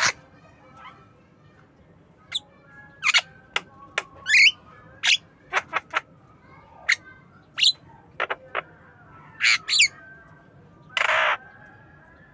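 Javan myna calling in a loose series of short notes: sharp clicks and squeaky whistles, a rising whistle about four seconds in, and a harsh squawk near the end.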